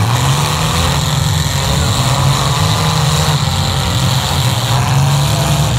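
Engines of several compact demolition derby cars running at idle together: a loud, steady low drone without crashes.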